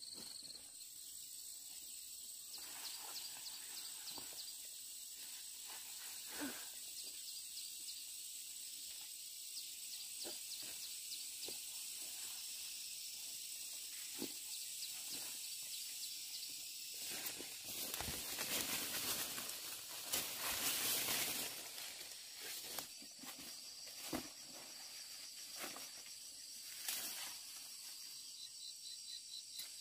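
Steady high-pitched chorus of insects such as crickets or cicadas, with scattered light clicks and a louder noisy stretch about two-thirds of the way through.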